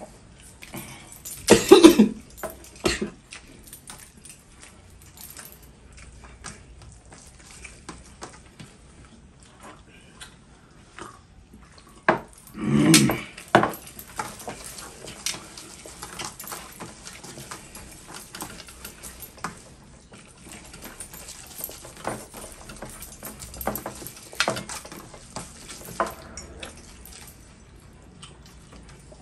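Two men eating rice with their hands from steel plates: chewing and mouth noises, and fingers scraping and tapping on the metal plates, with two louder noisy bursts about two seconds and thirteen seconds in.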